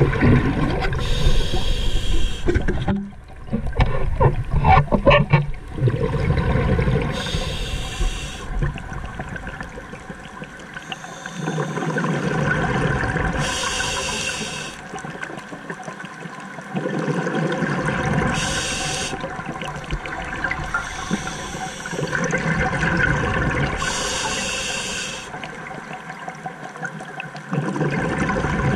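Scuba diver breathing through a regulator underwater: five hissing inhalations about every five to six seconds, each followed by a few seconds of bubbling exhaust as the breath is let out.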